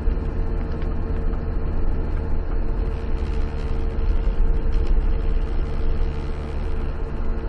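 Car engine and tyre noise heard from inside the cabin while driving slowly on a dirt road: a steady low rumble with a faint steady hum.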